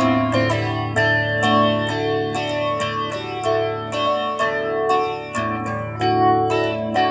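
Guitar playing an instrumental melody: single picked notes, about two a second, over a sustained low bass note.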